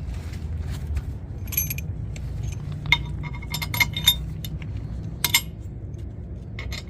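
Small metal parts clinking and knocking together as they are handled, a few sharp clinks at a time over a steady low hum.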